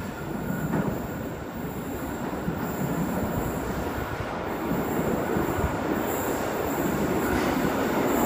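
Tangara electric train approaching an underground platform through the tunnel, its rumble growing steadily louder.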